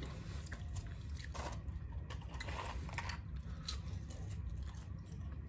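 Someone eating fast food: chewing and crunching, mixed with the crinkle of a paper wrapper and a paper fry carton being handled. The sounds are soft, scattered clicks and rustles.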